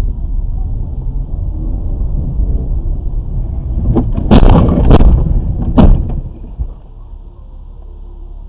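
Car collision heard from inside a dashcam car: a steady low rumble of engine and tyres on a snowy road, then about four seconds in three loud bangs over two seconds as the cars hit. After that the rumble drops lower.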